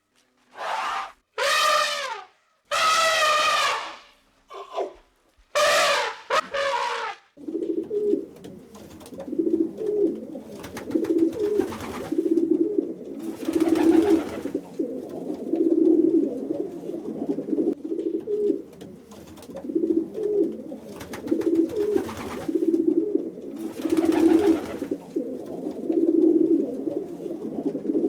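Birds calling: several loud, short calls rich in overtones in the first few seconds. These are followed by a long run of low cooing calls repeated over and over.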